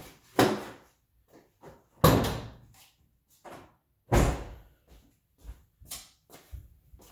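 Three loud clunks about two seconds apart, with lighter knocks between them, from the body of an EF Honda Civic hatchback as its hood is released and popped open again.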